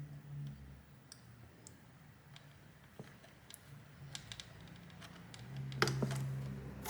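Light scattered clicks and taps of small wire connectors being handled and plugged back onto a hoverboard's circuit board, with a sharper pair of clicks near the end, over a low steady hum.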